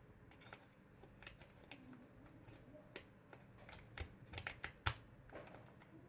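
Keystrokes on an aluminium-cased TKL mechanical keyboard, the PMO Aurora 80 Black Pro with Kailh Lunar switches. Scattered single key presses, then a quick run of louder strokes about four to five seconds in.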